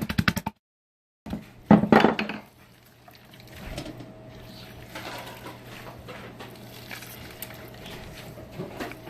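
Kitchen handling noise of dishes and utensils: a fast run of clicks that stops suddenly, a loud knock about two seconds in, then faint scraping and clinking over a steady hum.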